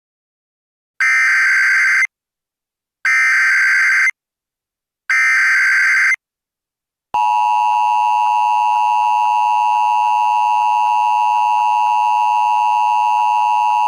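Emergency Alert System activation: three identical SAME header data bursts, each about a second long and a second apart, then the steady two-tone EAS attention signal starting about seven seconds in.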